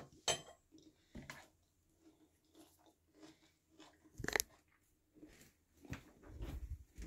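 Clicks, rustles and sharp knocks from a handheld phone being handled and moved, with a run of low thumps in the last second or so as it is carried off.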